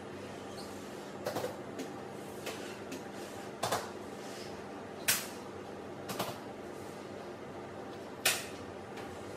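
Scattered knocks, clicks and light clatter of things being handled and set down on a shop counter, the sharpest about five and eight seconds in, over a steady low hum.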